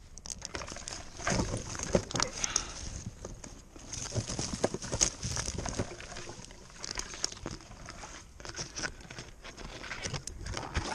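Rope-ascending gear in use: a hand ascender on the climbing rope, with carabiners and hardware clinking and the rope rustling, in uneven repeated strokes as the climber moves up.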